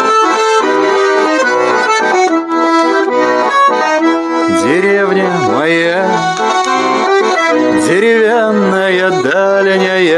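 Accordion music, the instrumental introduction to a song, with a swooping, wavering melody line coming in about halfway through.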